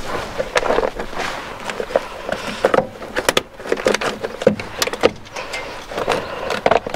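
Plastic engine cover being wrestled free by gloved hands: a busy run of clicks, knocks and rustling scrapes of hard plastic against the engine's hoses and fittings.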